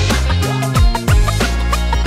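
Background music: an electronic beat with deep bass drum hits that drop in pitch, over sustained synth tones.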